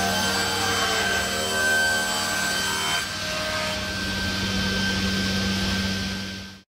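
Sliding-table circular saw ripping a rough-sawn solid-wood board lengthwise, trimming off the waney edge. The steady motor hum is overlaid with a shifting whine from the blade cutting through the wood, and the sound cuts off suddenly near the end.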